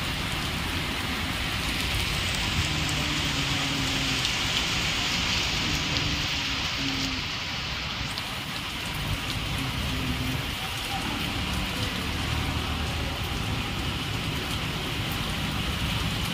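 Steady rain falling and splashing on wet pavement, with scattered sharp ticks of individual drops.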